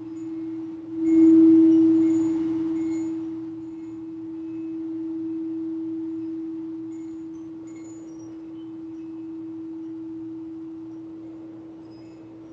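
Singing bowl struck about a second in, its single deep tone ringing on and slowly swelling and fading in waves, with faint high tinkling now and then.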